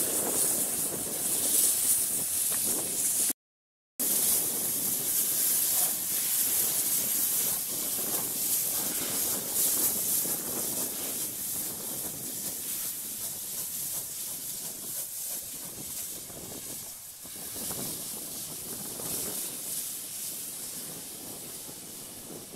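Steam tank locomotive hissing steam as it moves off, the sound slowly fading as it draws away. The sound cuts out completely for about half a second near the start.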